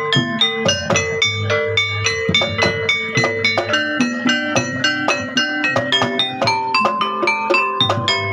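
Music: a fast, even run of struck tuned percussion notes that ring briefly, over a steady low bass line.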